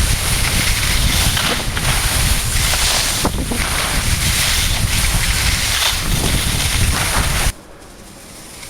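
Wind rushing over a ski camera's microphone together with skis hissing over snow at speed. The noise cuts off abruptly about seven and a half seconds in, leaving a much quieter stretch.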